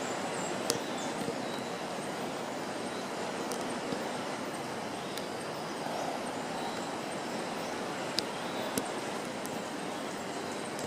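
Steady rushing outdoor background noise, with a few sharp clicks and faint high chirps scattered through it.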